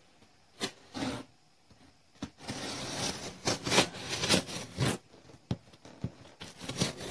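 A knife slicing through packing tape along the seam of a cardboard box: a couple of sharp clicks, then a scratchy tearing rasp lasting about two and a half seconds, then a few light ticks.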